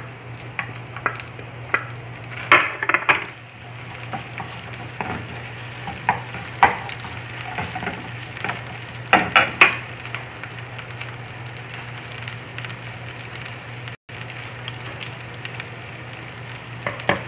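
Onion and garlic sizzling in corn oil in a nonstick frying pan, with a wooden spatula scraping and knocking against the pan now and then, most about two and a half, seven and nine seconds in. A steady low hum runs underneath.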